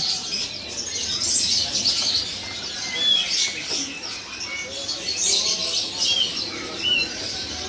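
Many caged songbirds chirping and twittering together, with a few short clear whistled notes about three and six seconds in.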